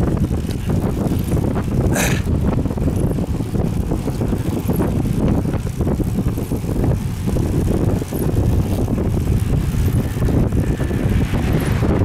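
Strong wind buffeting the microphone of a camera riding on a road bike, a loud, steady low rumble. There is a brief sharp click about two seconds in.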